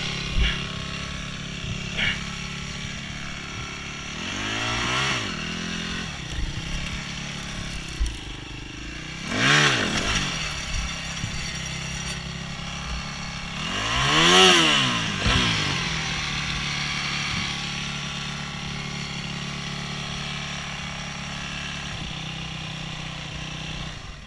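Yamaha WR250F four-stroke single-cylinder dirt bike engine idling, with the throttle blipped three times in quick rising-and-falling revs. The third rev is the loudest. A few short knocks are heard early on and about eight seconds in.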